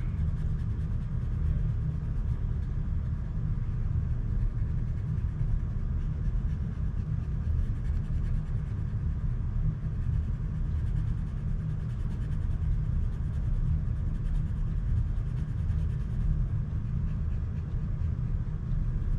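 A steady low background rumble with no change in level. Faint scratching from a colored pencil being shaded across paper.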